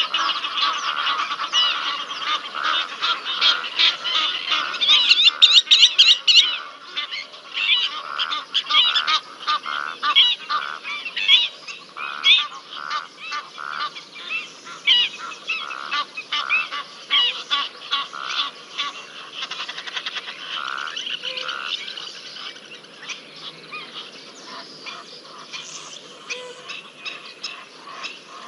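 Egyptian geese honking in a rapid run of repeated calls, loudest about five seconds in and tailing off toward the end.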